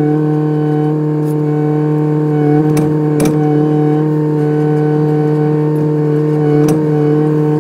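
Kubota excavator's engine and hydraulics running at a steady speed, a constant humming drone, with a few sharp knocks now and then.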